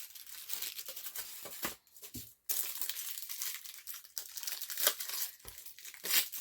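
Plastic packaging crinkling and rustling as it is handled and torn open. There is a brief pause about two seconds in, then denser crinkling.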